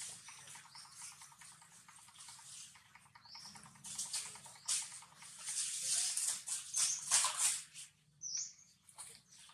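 Dry fallen leaves rustling and crackling as macaques move about and paw through them, loudest about four to seven seconds in. A few short high squeaks or chirps are also heard.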